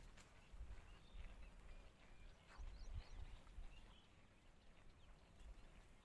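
Near silence: faint outdoor ambience with an uneven low rumble and a few faint, short bird chirps.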